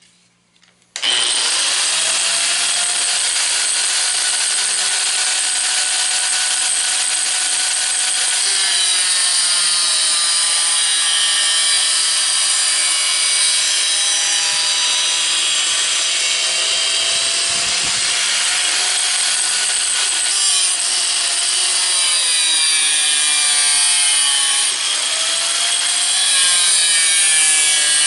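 Power saw cutting through aluminium: a loud, steady machine noise that starts abruptly about a second in, with a high squealing pitch that wavers up and down as the blade works through the metal.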